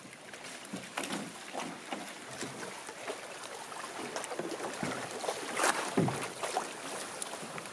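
Small waves lapping and slapping against a canoe's hull and the shore rocks, with scattered knocks and splashes as the canoe is boarded and pushed off; the loudest knocks come a little before and at about six seconds in.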